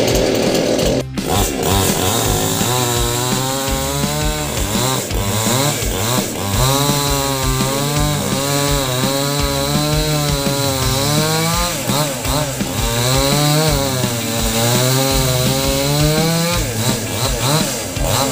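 Two-stroke chainsaw engine running at high speed, its pitch rising and falling repeatedly as the throttle or cutting load changes.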